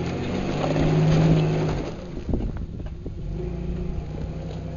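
Off-road 4x4's engine revving hard under load to get over an obstacle, loudest about a second in and easing off about two seconds in. A sharp knock follows, then the engine carries on more quietly.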